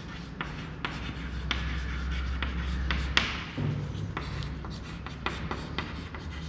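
Chalk writing on a chalkboard: a string of short taps and scrapes as letters are written, with one longer scraping stroke a little after the middle.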